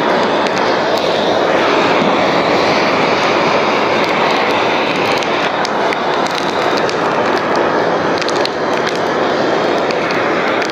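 Heat gun's fan motor blowing hot air steadily onto old laminate to soften its glue. Scattered clicks and light scraping come from a metal blade prying the sheet up.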